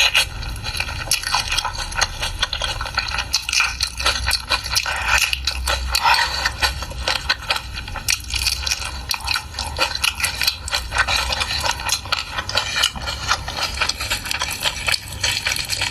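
Close-miked mukbang eating sounds: chewing and mouth smacking on pork, a dense run of small clicks and crackles.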